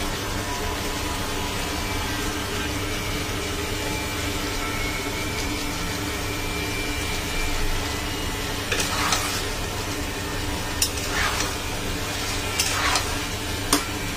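Okra sizzling in a coated pan over a steady mechanical drone, which the cook puts down to construction work next door. From about nine seconds in, a metal spatula scrapes and knocks against the pan several times as the okra is stirred into the masala.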